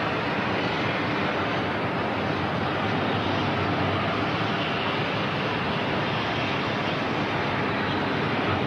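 Steady, even rushing noise at a constant level, with no distinct events.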